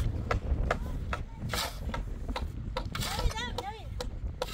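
Steel spade scraping and scooping into a pile of sand, with sharp gritty scrapes and a longer hissing scrape about a second and a half in. Voices are heard in the background from about three seconds in.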